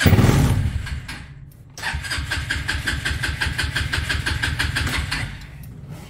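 Trailmaster Challenger 300 go-kart engine being started on the key after a carburetor replacement. A loud first burst comes right at the start. After a short lull comes about three seconds of evenly pulsing, rhythmic engine sound that eases off about five seconds in, leaving a lower running rumble.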